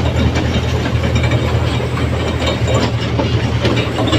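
Toy train running: a steady low engine drone with a rattling, clicking noise over it.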